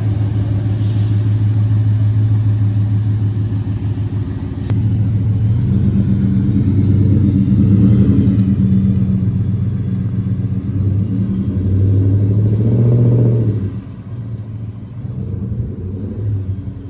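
Ford F-150's 5.0 V8 through a Roush cat-back exhaust, running with a deep note as the truck pulls away. It rises in pitch and loudness twice, about six and about twelve seconds in, then drops off sharply near the end.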